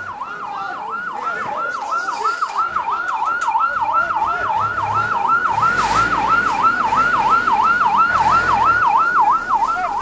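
Fire engine siren on a fast yelp, an even up-and-down wail about three times a second, continuous as the truck moves through the crowd.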